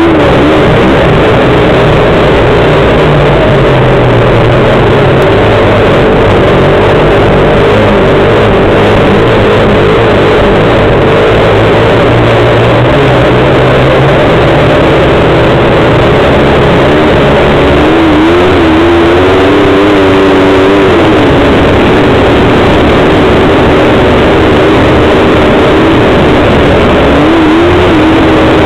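Engine of an off-road vehicle running loudly as it is ridden along a snow-covered trail. Its pitch wavers and rises about two-thirds of the way through, and again near the end.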